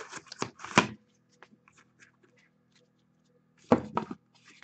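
A 2016 Leaf Trinity football cardboard box and a card in a hard plastic holder handled on a table: a quick run of knocks and scrapes in the first second, then another short cluster near the end as the lid comes off and the cased card is slid out.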